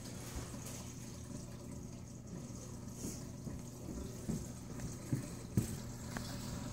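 Aquarium water trickling and dripping over a low steady hum, with a few small drips between about four and six seconds in.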